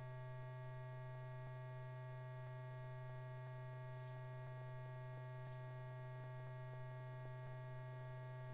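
Steady low electrical hum with a stack of even overtones, the background hum of an old film soundtrack, with a few faint ticks.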